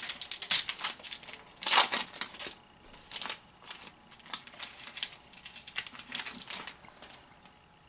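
Foil trading-card pack wrapper crinkling and being torn open, with cards rustling: a run of sharp crinkles, loudest about half a second and two seconds in, fading out near the end.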